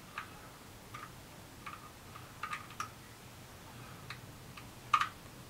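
Irregular light metallic clicks, about seven of them with the loudest about five seconds in, from a thread tap being turned by hand in its holder to clean out a bolt hole in an aluminium engine block.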